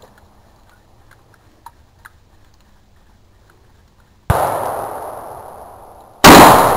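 Two gunshots about two seconds apart, the second much louder, each followed by a long fading echo. Before them, a few faint clicks.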